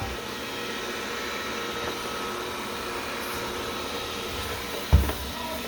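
Wyze robot vacuum running with a steady whir, and a single low thump about five seconds in.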